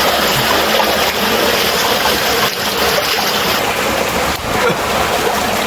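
Steady rush of water from a small waterfall pouring into a pool, close by and loud.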